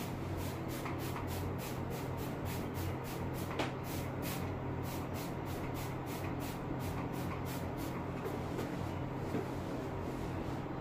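Trigger spray bottle squirting a vinegar-and-water solution onto a glass shower panel: quick repeated hissing squirts, about three a second, over a steady low hum.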